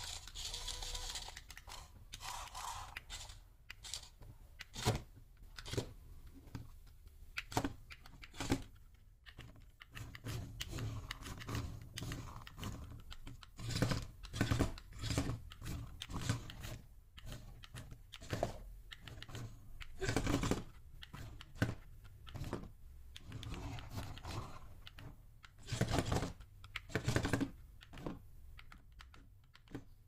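Small battery-powered RC stunt car driving and tumbling on a tabletop: its plastic body and wheels clatter and knock in irregular bursts as its motors run in spurts. Near the start, the wheels spin freely while the car is held in the hand.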